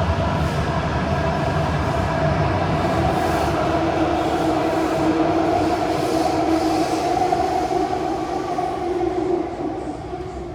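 KHI & CRRC CT251 metro train running between stations, heard from inside the carriage: steady running noise with a steady whine in two tones over it. It grows quieter near the end.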